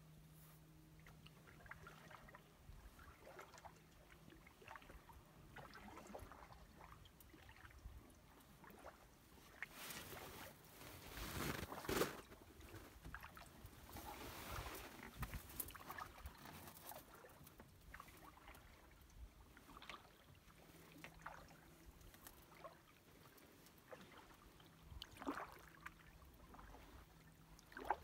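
Canoe paddle dipping and pulling through calm water, with soft splashes and drips off the blade, quiet overall with a louder run of strokes about a third of the way in.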